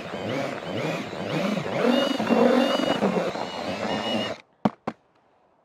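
Cordless drill with a paddle mixer spinning through dry groundbait and soil in a plastic bucket, its motor whine wavering over the hiss of the churned mix. It stops suddenly about four and a half seconds in, followed by two short clicks.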